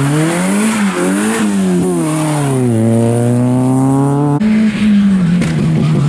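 Citroën Saxo rally car's engine accelerating hard away from a corner, its pitch climbing and dropping back at three gear changes. About four and a half seconds in, it cuts abruptly to a Renault Clio rally car's engine running at steadier, lower revs as it approaches.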